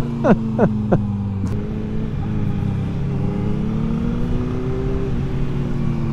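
Motorcycle engine revved in four quick blips in the first second, each a short rising rev, then motorcycles running along at steady engine speed with the pitch slowly climbing.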